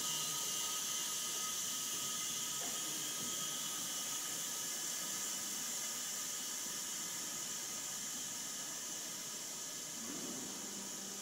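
Steady hiss of compressed air from the pneumatic cannon that fires red wax into the corner, slowly fading.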